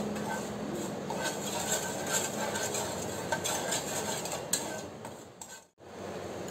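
A spoon stirring sugar and water in a pan, scraping and clinking against the pan while the sugar dissolves into syrup. The sound drops out briefly near the end.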